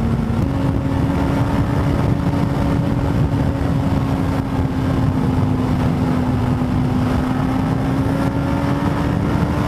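Motorcycle engine pulling at steady revs under throttle, its note stepping up about half a second in and then holding, over heavy low wind rumble on the microphone.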